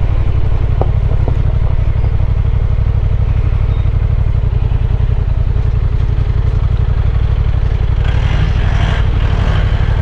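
Honda Transalp 750's parallel-twin engine running steadily at low revs, with a couple of light knocks about a second in.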